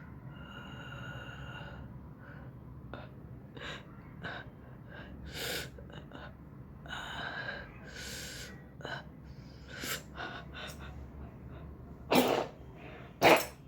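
A person tickling the inside of their nose with a pen to provoke sneezing: a run of short nasal breaths and gasps. Near the end comes a loud sneeze in two bursts about a second apart.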